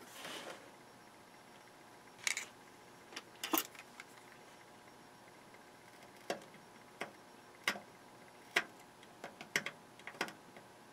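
A brief soft rustle, then about a dozen light, irregular clicks and taps from a thin metal-tipped hand tool touching and tapping solder joints on the underside of a circuit board.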